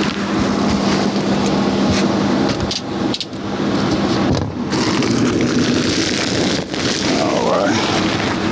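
Steady mechanical running noise with a low hum that stops about four seconds in, with a few clicks and knocks of handling over it.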